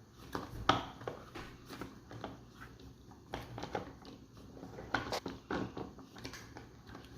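Plastic Play-Doh playset parts being handled: scattered light clicks and taps against a low background hum.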